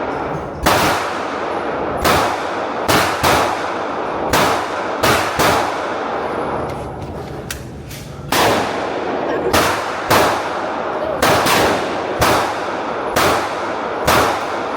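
Handgun shots fired at a shooting range, about fifteen at an irregular pace of roughly one a second, each sharp crack followed by an echoing tail.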